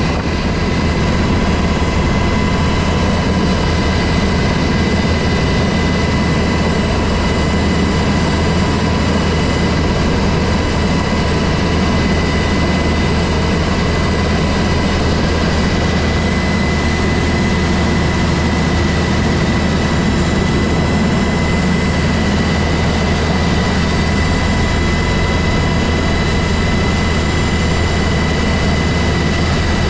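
UH-60 Black Hawk helicopter's twin turboshaft engines and main rotor running steadily, heard from inside the open cabin door. The sound is loud: a deep, even drone with a steady high turbine whine over it.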